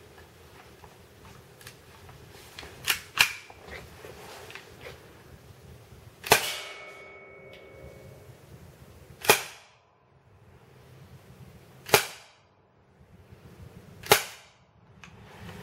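Gletcher APS Stechkin 6mm blowback airsoft pistol fired in single shots, each a sharp crack with a short echo. There are two close together about three seconds in, then four more spaced two to three seconds apart.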